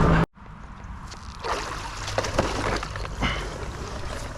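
A louder steady noise cuts off abruptly just after the start. Then canal water sloshes, trickles and splashes, with a few light knocks, as a magnet catch is pulled from the water.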